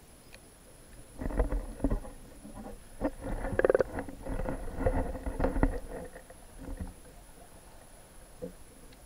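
Irregular knocks, rattles and scrapes on an underwater camera's housing as it is moved about, with a brief buzzy sound in the middle, for about six seconds.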